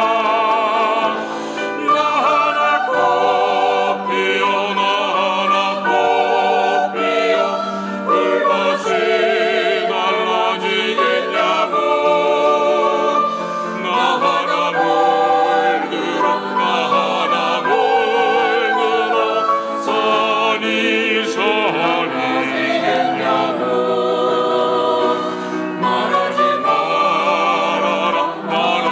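A women's choir singing a slow song in Korean, the voices held with vibrato in phrases of a few seconds each.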